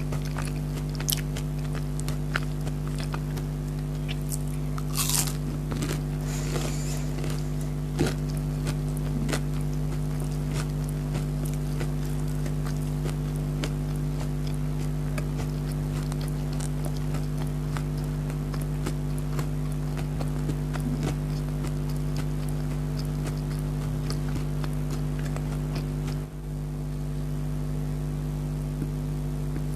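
Close-miked chewing and biting into chicken nuggets, with scattered small crunches and wet mouth clicks, a few louder bites in the first several seconds. A steady low hum runs underneath, dipping briefly near the end.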